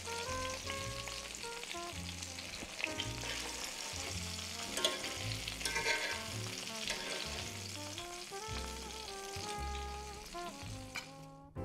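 Cornmeal-crusted butterfish frying in oil in a cast iron skillet, a steady sizzle with occasional clicks of the utensil against the pan as the fish is turned; the sizzle cuts off near the end. Background music with a melody and bass notes plays throughout.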